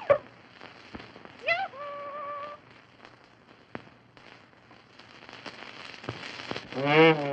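Crackle and hiss of a worn 1929 cartoon film soundtrack, with sparse sound effects over it. A quick falling pitch comes at the start, a tone slides up and holds about a second and a half in, a few sharp clicks follow, and a loud wavering pitched note comes near the end.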